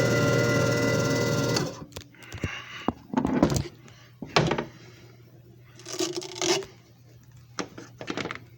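JFJ Easy Pro disc repair machine running with a steady hum and whine, then stopping suddenly under two seconds in. Clicks, knocks and short scrapes follow as the machine is handled.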